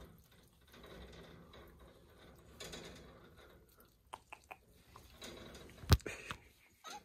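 Soft clicks and small wet smacks from a calico cat sniffing and licking at a finger through a wire cage. One sharp knock against the cage wires about six seconds in is the loudest sound.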